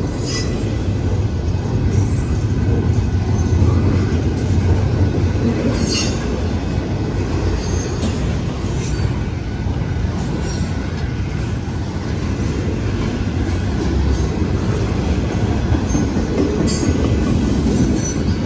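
Double-stack intermodal freight train's well cars rolling past: a steady rumble of steel wheels on rail, with a few brief high squeaks now and then.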